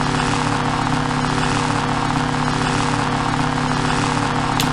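Lightsaber hum sound effect: a steady, constant electrical hum with a low buzz, held at one pitch without swings.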